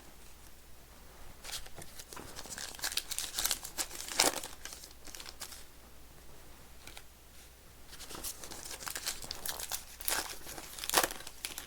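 Trading card pack wrappers crinkling and tearing as packs are ripped open by hand, in irregular crackly bursts with a lull in the middle.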